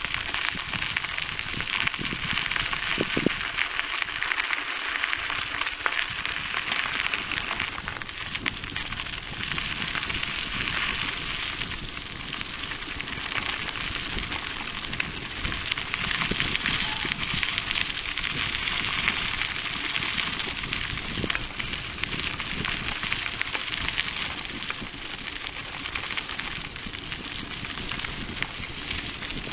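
Bicycle tyres rolling over a gravel dirt road: a steady crunching crackle of small stones under the wheels, with scattered sharper clicks.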